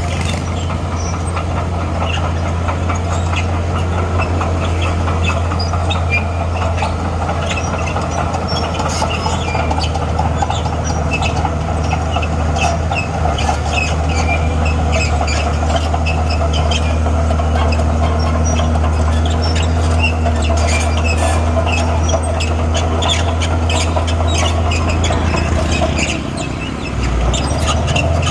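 Crawler bulldozer working: its diesel engine runs steadily, with many sharp clicks and rattles over the hum. The engine note drops briefly near the end, then picks back up.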